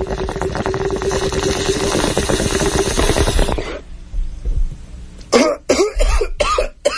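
Bong-hit sound effect: a water pipe bubbling steadily for nearly four seconds as the smoke is drawn, then a quieter pause and a run of coughing a little after five seconds in.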